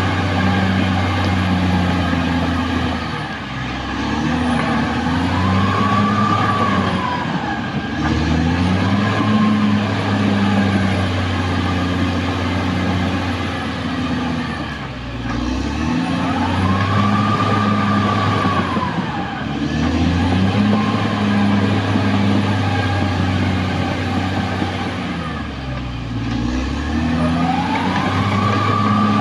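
Caterpillar D6R XL bulldozer's diesel engine running hard under load, its pitch sagging and recovering several times as the blade and tracks take up the load. A whine rises and falls along with each change.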